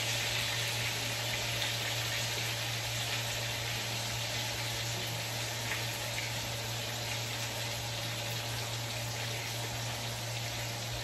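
Steak frying in butter in a tilted frying pan, a steady sizzle, over a steady low hum.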